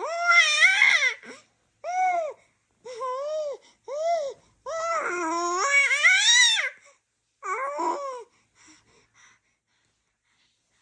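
Baby babbling in a string of high-pitched, sing-song vocal sounds with rising and falling pitch, the longest about two seconds; it stops about eight seconds in.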